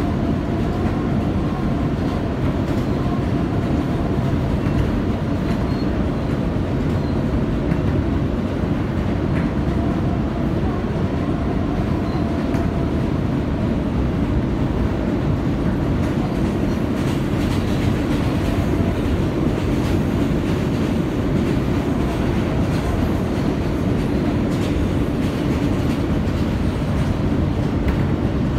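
An R160 subway car running at steady speed on elevated track, heard from inside the car: a steady rumble of wheels on rail with a faint steady motor whine and a few clicks from rail joints.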